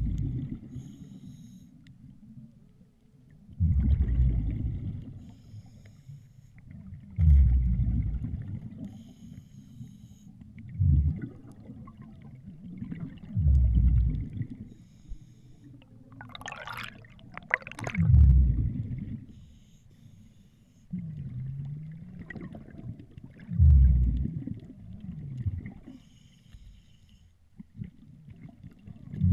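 A diver breathing through a scuba regulator underwater: a rumbling burst of exhaled bubbles every three to four seconds, with a fainter hiss of inhalation between them.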